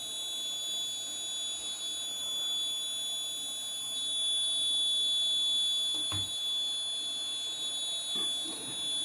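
Buzzer on an alcohol-detector circuit board sounding a steady, high-pitched alarm tone, signalling that alcohol has been detected and the engine is locked off.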